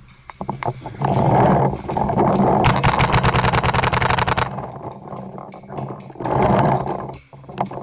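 Paintball marker firing a rapid string of about ten shots a second for nearly two seconds, with scattered clicks and rustling around it.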